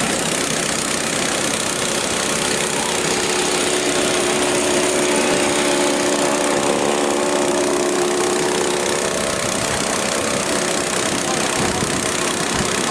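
A small engine running steadily, with a faint steady hum rising and fading in the middle.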